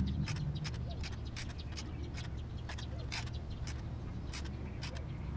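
Scattered sharp clicks, a few a second, as the 2009 Honda Odyssey's V6 crankshaft is turned over by hand with a socket wrench on the crank bolt. The engine is being rotated after the new timing belt's tensioner has been released, to check that the timing marks stay aligned.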